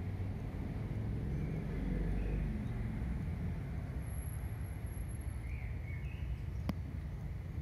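Outdoor ambience: a steady low rumble with a few faint bird chirps, and a single sharp click near the end.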